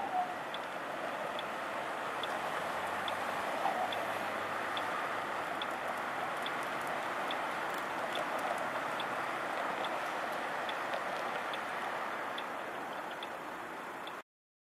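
Steady city street traffic with the even ticking of a pedestrian crossing signal, a little more than one tick a second. The sound cuts off just before the end.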